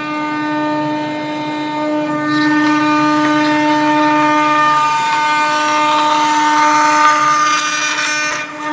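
Router spindle running with a steady whine as its bit mills a groove in composite sheet; the hiss of the cut grows from about two seconds in and drops away briefly near the end.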